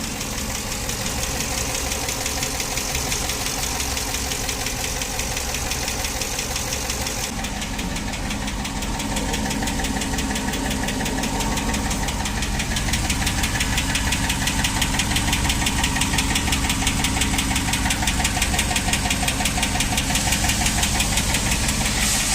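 Jeep Wrangler 392's 6.4-litre HEMI V8 running with a fast, steady ticking knock from the valvetrain, the sign of a collapsed hydraulic valve lifter. It gets a little louder from about halfway.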